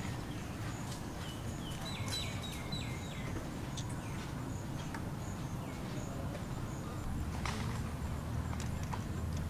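Outdoor ambience with a steady low rumble, a quick run of short high chirps about two seconds in, and scattered faint clicks; a low steady hum comes in near the end.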